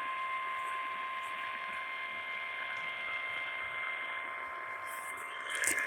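NOAA Weather Radio warning alarm tone: a single steady tone over radio static hiss, with a few faint crackles near the end. The tone signals that a warning message, here a flash flood warning, is about to follow.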